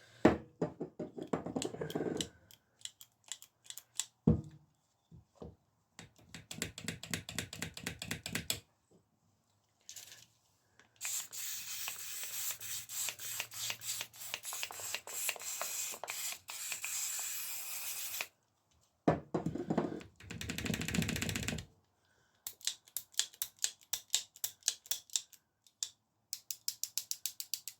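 Bicycle gear shifter being worked over and over, its ratchet clicking in quick runs as it is freed up, with a long hiss of spray in the middle.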